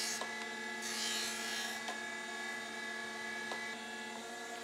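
Surface grinder running with a steady motor hum as its wheel grinds wood-planer knives. Hissing passes of the wheel across the work come in the first two seconds, then only the spindle runs, with a few faint clicks.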